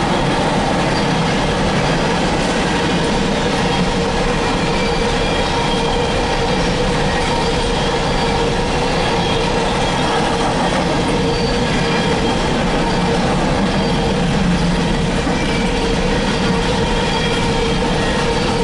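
Empty coal hopper cars of a freight train rolling past at a steady pace: a continuous, loud rolling noise of steel wheels on rail, with a faint squeal running through it.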